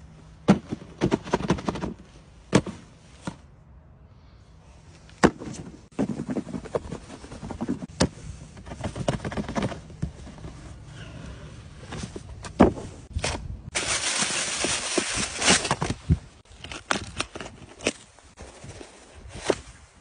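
Unboxing of a cardboard football-boot box: sharp taps and knocks of hands on the box and lid, with a stretch of tissue paper rustling and crinkling for about two seconds a little after the middle, then the boots being handled.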